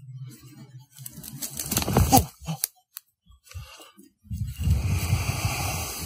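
Brush and ferns crunching and rustling underfoot, with camera handling noise as the camera jolts when the walker's bad leg gives way. It is loudest about two seconds in and again over the last second and a half.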